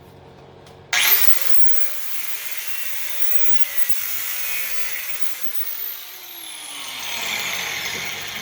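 Power grinder with an abrasive cutoff wheel switching on about a second in and cutting through a transformer's steel, a loud hissing grind over the motor's whine. The motor's pitch rises as it spins up, holds, then drops steadily in the second half as it slows under load or is released.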